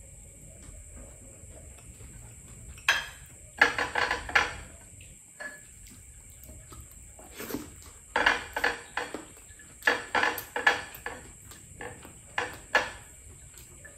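Plates and tableware clinking and scraping as someone eats by hand, in several short clusters of sharp clicks.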